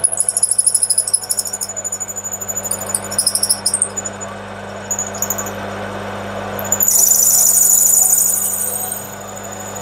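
A twist drill squealing as it cuts into a spinning brass workpiece on a lathe, enlarging a 5 mm pilot hole, over the lathe's steady motor hum. The squeal comes in quick pulses for the first few seconds, then holds louder and steady for about two seconds near the end.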